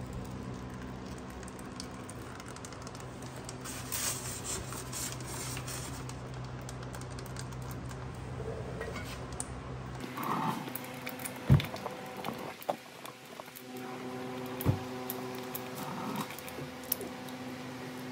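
Light clicking of a socket wrench on a long extension over a steady low hum, with a short run of clicks about four seconds in; in the second half, scattered clicks and three sharp knocks.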